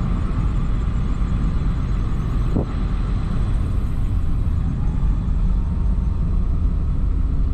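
A vehicle's engine running at a steady low rumble while driving, with a faint steady whine above it.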